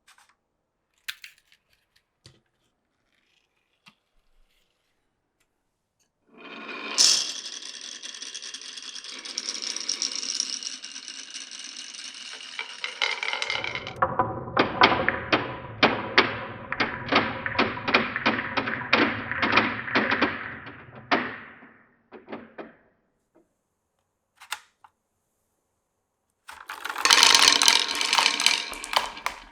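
Marbles running through a wooden and plastic marble run. There are a few light clicks, then a steady rolling run of several seconds. Next comes a stretch of knocks about three a second over a low rumble, as a marble clatters along a bumpy section of track. Near the end there is another loud rolling run.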